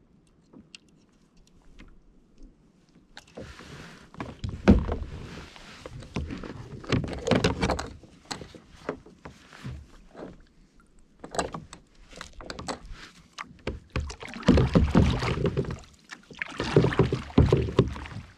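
Kayak paddling: a run of splashing, sloshing paddle strokes in the water with some sharp knocks among them. It starts about three seconds in, after a quiet opening.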